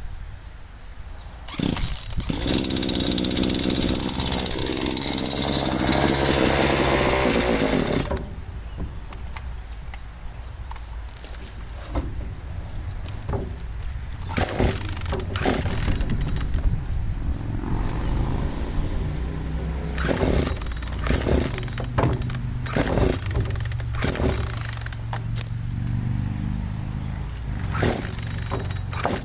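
Craftsman two-stroke chainsaw engine catching about a second and a half in and revving, its pitch climbing until about 8 s, then falling back to a rough, uneven run that revs up and down several more times.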